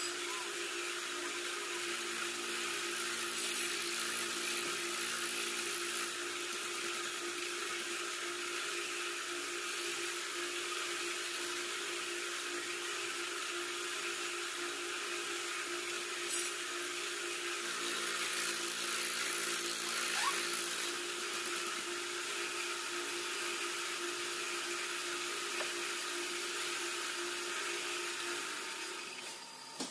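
Cylinder boring machine running steadily with a constant hum and a hiss, reboring a motorcycle cylinder. The machine stops about a second before the end.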